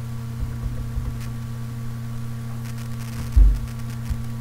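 Steady electrical hum in the recording microphone, with a few low thumps and faint clicks; the loudest thump comes about three and a half seconds in.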